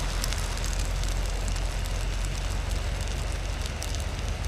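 Portable gas canister stove burning under a non-stick frying pan as a bread roll toasts: a steady hiss with a low rumble and scattered light crackles.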